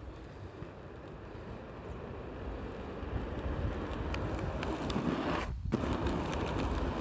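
Skate wheels rolling fast on rough asphalt, a rumble that grows steadily louder as speed builds, with a brief break about five and a half seconds in.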